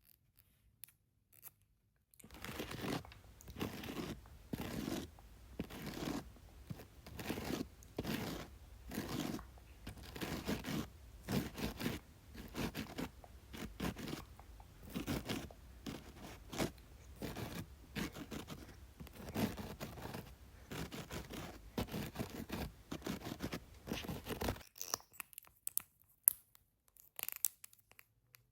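Layered ASMR makeup sounds: a run of quick, scratchy, crunching strokes, about one or two a second, over a low steady hum, starting about two seconds in. Near the end the strokes stop, leaving a few sparse light clicks and taps.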